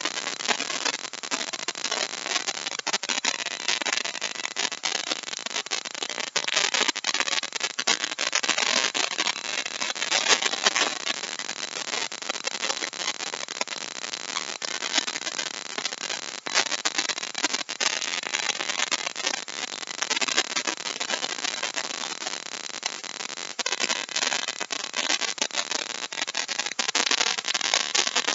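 Compact router running and cutting a deep mortise in wood: a steady dense noise from the motor and spinning bit, shot through with constant rapid crackling as chips are cut away.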